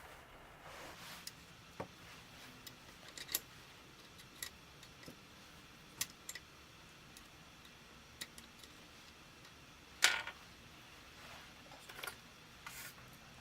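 Scattered small clicks and light taps from tools and rifle parts being handled on the bench, the loudest about ten seconds in.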